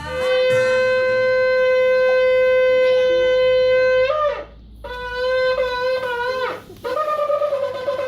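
Shofar blown: one long steady blast of about four seconds that slides down in pitch as it ends, then after a short gap a wavering note broken into short pieces, then another blast beginning near the end.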